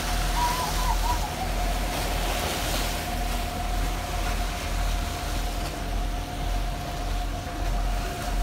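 Fast ferry Rathlin Express under way: its engines run steadily, a low rumble with a constant high whine, over a hiss of wind and water rushing past the hull.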